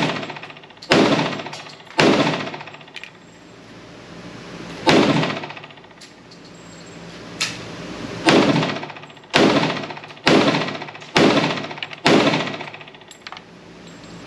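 Pistol shots from an FN FNX-45 Tactical, a .45 ACP pistol: about nine loud shots at an uneven pace, mostly about a second apart with a longer gap in the middle, each with a short echoing tail. Two fainter bangs come between them.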